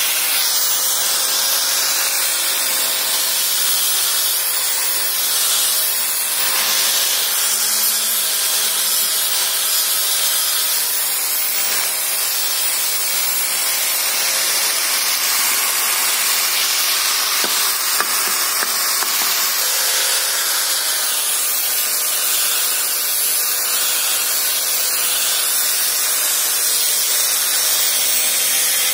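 Buildskill angle grinder with a sanding disc running steadily while the disc sands a carved wooden plow piece: a steady, hissy rasp of abrasive on wood over a faint motor whine.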